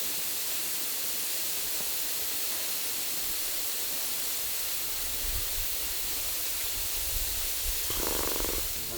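Waterfall rushing, a steady hiss, with a low rumble coming in about halfway through and a brief pitched sound near the end.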